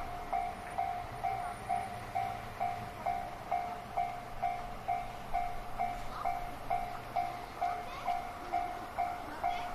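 Japanese railway level-crossing warning bell sounding its repeated 'kan-kan' ding, a little over two strokes a second, with a passing train's low rumble fading underneath.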